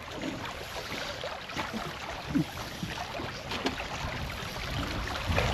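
Steady rush of river water around a boat, with a few faint clicks and knocks.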